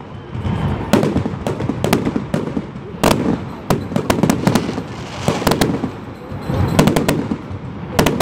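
Aerial fireworks shells bursting overhead in quick succession: a dozen or so sharp bangs, irregularly spaced, the loudest about three seconds in.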